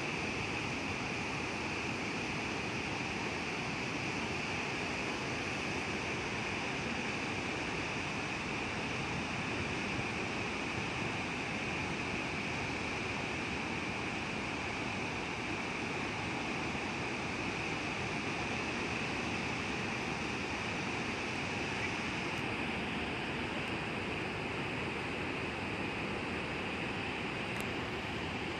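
Niagara Falls' water plunging into the gorge: a steady, unbroken rushing noise of falling water and spray.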